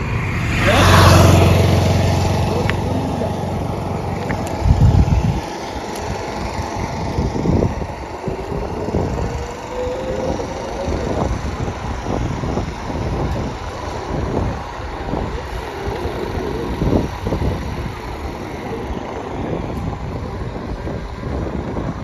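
Wind buffeting the microphone of a body-worn camera on a moving bicycle: an uneven rumble with repeated gusts. For the first few seconds a steady low engine hum runs under it, like a passing motor vehicle, and it ends in a loud thump about five seconds in.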